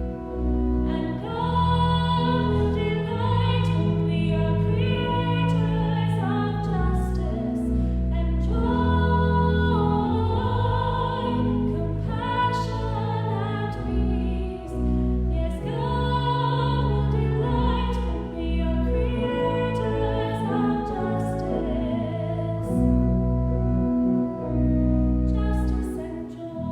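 Classical-style singing with vibrato over sustained keyboard accompaniment: a sacred song or anthem.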